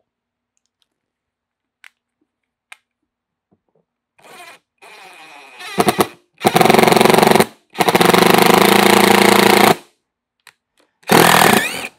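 DeWalt DCF787 20V cordless impact driver driving a screw into the plastic tractor seat shell. It spins with a light whir about four seconds in, then the impact mechanism hammers in three loud bursts, the longest about two seconds.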